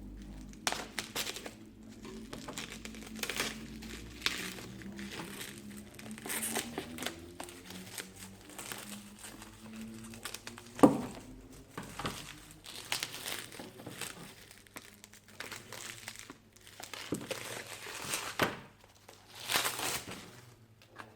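Packaging crinkling and rustling as it is handled, in irregular bursts, with one sharp knock about eleven seconds in.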